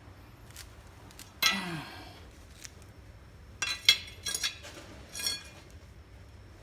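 Pieces of cut ceramic tile clinking together as they are handled: one sharp, ringing clink about a second and a half in, then a quick run of clinks a couple of seconds later.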